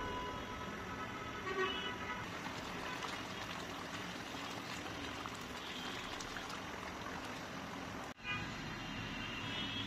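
Thick coconut-prawn curry bubbling and spluttering in a frying pan as a silicone spatula stirs it. Car horns honk in the background in the first two seconds and again near the end.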